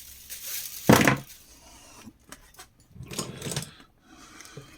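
Metal parts and tools knocking and clattering while a mini fridge's electronics are taken apart: one loud knock about a second in and a short rattle around three seconds in, with small clicks between.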